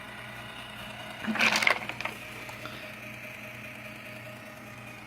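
Small 12-volt DC motor of a homemade dog feeder running with a steady hum as it turns a PVC dispensing wheel. There is a brief rattling burst about a second and a half in.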